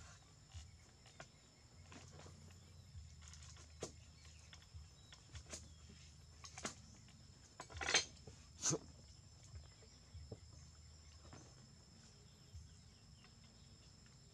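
Quiet outdoor ambience: a steady low hum and two faint steady high tones, with scattered small clicks and taps, the loudest two about eight seconds in.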